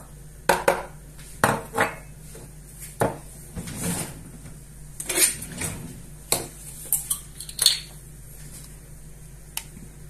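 Kitchen utensils being handled over a plastic mixing bowl: a small dish and a metal spoon clinking and knocking, a dozen or so sharp clicks at irregular intervals.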